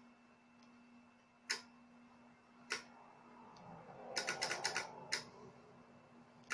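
Bi-xenon projector's high-beam solenoid clicking as its shutter is switched: two single clicks about a second apart, then a quick run of about seven clicks, over a faint steady hum.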